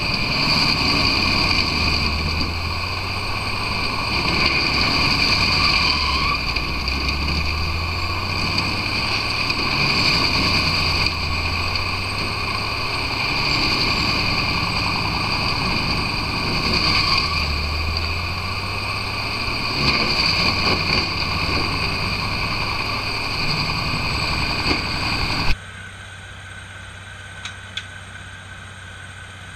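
Bandit Beast 3680 horizontal grinder running close up while chipping logs: a loud, steady mechanical drone with a deep rumble that swells and fades every few seconds. Near the end it drops abruptly to a much quieter, more distant sound of the machine running, with a couple of faint clicks.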